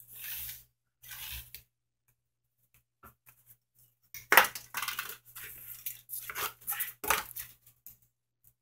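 Two short rustles of paper being handled, then a sharp click and about three seconds of rough scraping strokes: a utility knife slicing through a paper pattern against a wooden board.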